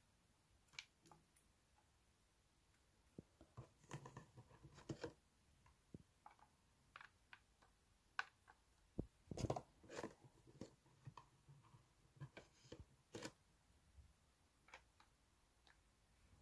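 Faint, irregular clicks, taps and rustles of hands handling clear plastic containers and radish seeds, busiest about four seconds in, around nine to ten seconds and near thirteen seconds.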